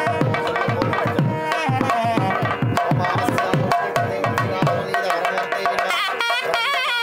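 Live nadaswaram and thavil wedding music: a reedy wind melody with sliding notes over fast drum strokes. The drumming stops about five seconds in while the melody carries on.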